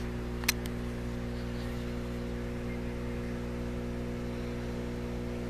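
Steady electrical hum and buzz from a deep water culture hydroponic setup, whose water pump, air pumps feeding the air stones and fluorescent grow lights all run continuously. A sharp click sounds about half a second in.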